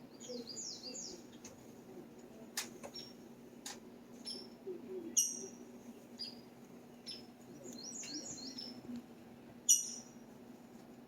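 Small birds chirping: a quick chattering run of high twitters near the start and again about eight seconds in, with sharp single chips in between. A faint steady low hum sits underneath.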